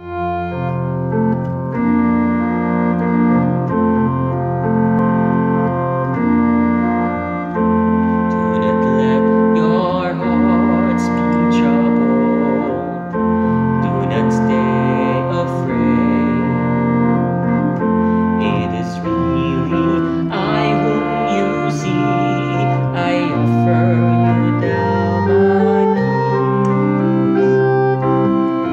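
Organ playing slow, sustained chords as an introduction, joined about eight seconds in by a man's solo singing voice carrying a slow hymn-like melody over the held organ chords.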